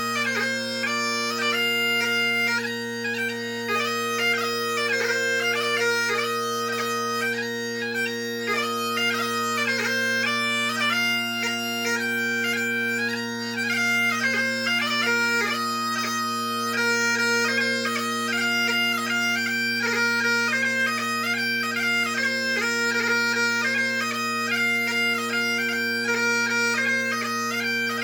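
Great Highland bagpipe played solo, part of a march, strathspey and reel set: steady drones sound under a fast chanter melody full of quick grace notes.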